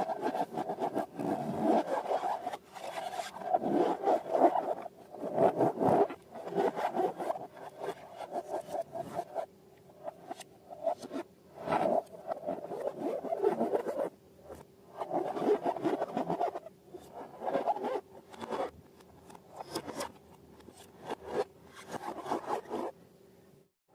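Slime and balloons being handled and squished by hand: bursts of rapid crackly, squelching and rubbing sounds, each a second or two long with short pauses between them. The sound cuts out briefly near the end.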